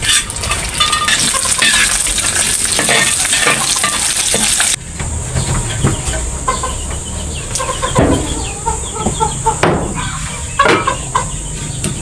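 Food sizzling in a pan with stirring scrapes, cut off suddenly a little under halfway through. After the cut, chickens cluck over a steady high hiss.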